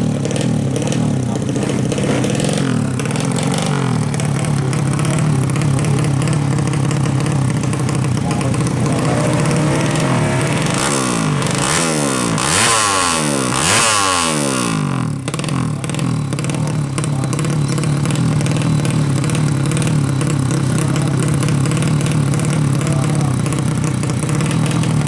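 Motorcycle engines running steadily, with one engine revving hard between about ten and fifteen seconds in, its pitch rising and falling in several sweeps.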